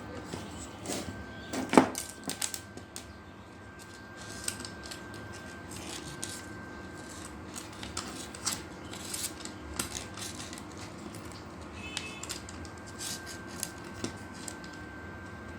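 Irregular sharp clicks and light metallic taps, the loudest about two seconds in, over a faint steady high-pitched whine and a low hum.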